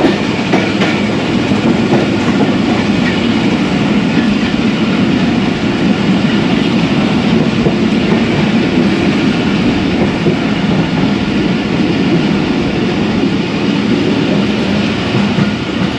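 Passenger train coach running on the track, heard from on board: a steady, loud rumble of wheels and rails with no break.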